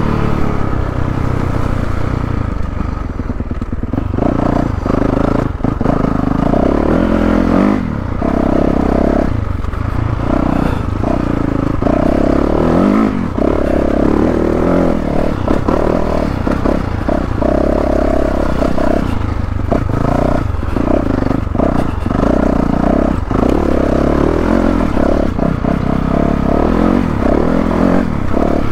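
2022 Yamaha YZ450F's single-cylinder four-stroke engine, revving up and easing off again and again as the bike is ridden over a rough dirt trail. Frequent knocks and rattles come from the bike over the bumps.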